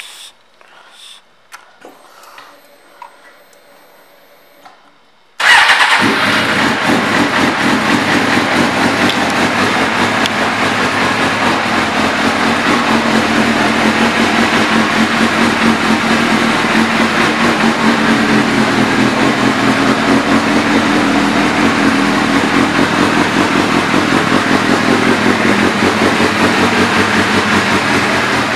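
2000 Suzuki GSX-R750's inline-four engine, fitted with an aftermarket exhaust, starts abruptly about five seconds in after a few faint clicks, then settles into a steady idle.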